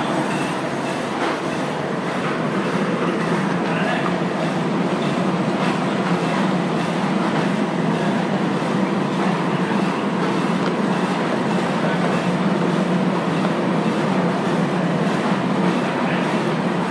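Packaging machinery running steadily: a continuous mechanical clatter and hum from a flow-wrap machine wrapping plastic tubs in film.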